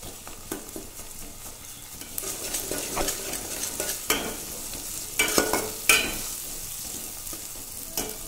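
Onion, chilli and ground-spice masala frying in mustard oil in a pan, sizzling while it is stirred, with a utensil scraping and knocking against the pan; a few sharper knocks come about five to six seconds in.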